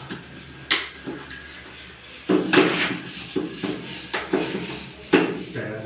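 Plastic tile-leveling clips and wedges on large porcelain tiles being worked with leveling pliers: several sharp clicks with plastic scraping and rubbing between them.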